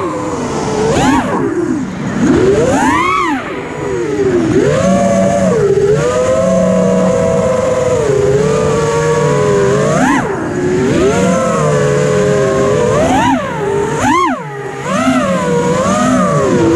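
FPV quadcopter's electric motors and propellers whining, the pitch rising and falling with the throttle, with sharp surges about 3, 10 and 14 seconds in.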